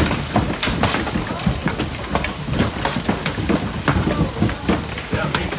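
Large hailstones, some the size of tennis balls, pelting down in a thunderstorm: a steady hiss of falling hail broken by many sharp, irregular knocks as stones strike nearby surfaces.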